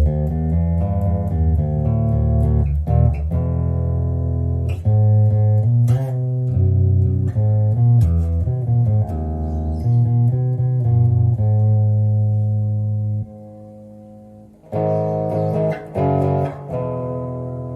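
Electric bass guitar played through a Fender Rumble LT25 bass amp: a riff of plucked low notes, then a brief drop about two-thirds of the way in, followed by a few brighter, higher notes that ring out.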